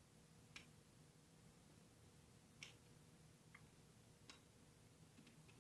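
Near silence with a few faint, short clicks, a second or two apart, from a screwdriver and wire being worked into a screw terminal block.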